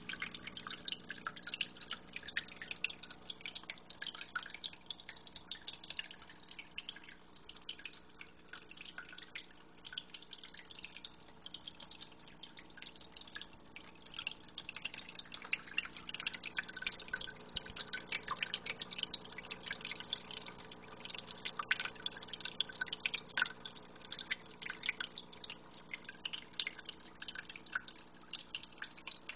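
Small terrarium waterfall trickling over rock, with constant irregular drips and splashes. A steady low hum runs underneath.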